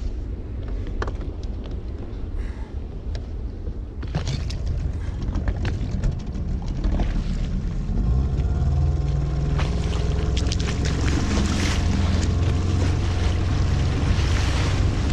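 Small outboard motor on an inflatable boat speeding up about halfway through, its pitch rising, then running steadily under way with rushing water and wind. Before it speeds up there is low rumbling wind and water noise with a few light knocks.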